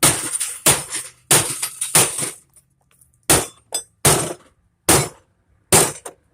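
A hammer striking a CRT television about nine times at an uneven pace, each blow a hard smash with glass crashing and clinking.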